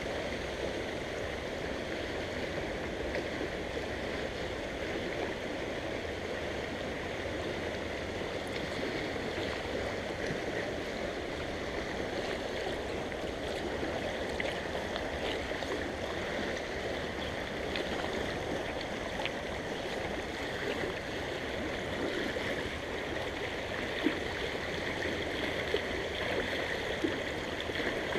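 Shallow creek riffle running over stones: a steady rush of flowing water, with a few short clicks in the second half.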